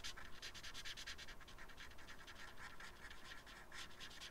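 A marker scratching across paper in quick back-and-forth strokes, several a second, as an area is coloured in.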